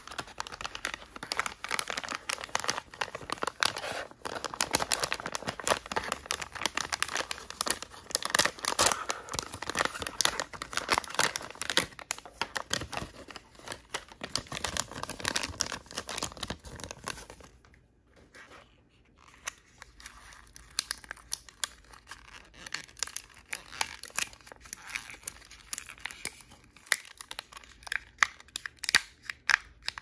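Crinkly wrapper of a toy surprise package being torn open and handled. Dense crackling rustle for a little over half the time, a brief pause, then sparser crinkles and a few sharp crackles near the end.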